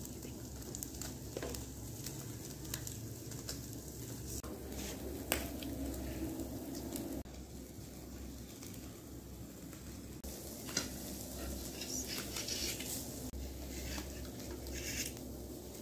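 Skewered chicken tikka sizzling over a charcoal grill, a steady crackling hiss with occasional sharp clicks and light metallic taps.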